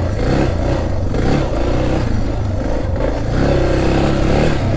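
Suzuki DR650's single-cylinder four-stroke engine revving up and down under throttle while being ridden on dirt.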